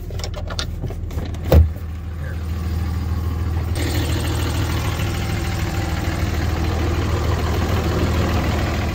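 Pickup truck engine idling steadily. A few clicks, then a truck door slams shut with one loud thump about a second and a half in. From about four seconds on the idle is heard from outside the cab, a little louder.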